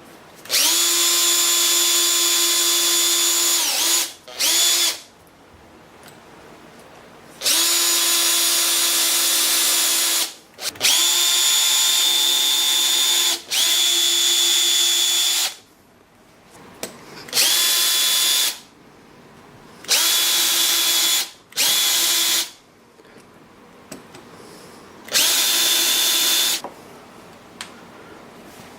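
Power drill-driver driving screws into wood in about nine short runs, each a steady motor whine of one to three seconds that winds down in pitch as it stops, with pauses between.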